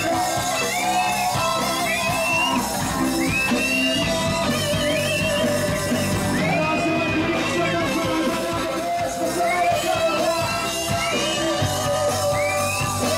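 Live band playing an instrumental passage: an electric guitar plays a lead line of repeated notes bent upward and held, some with vibrato, over bass guitar and drums.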